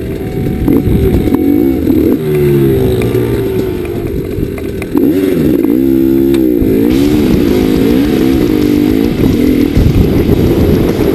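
Dirt bike engine, the rider's orange KTM, revving up and down repeatedly as the throttle is worked through soft sand. It gets louder about five seconds in as the bike pulls away.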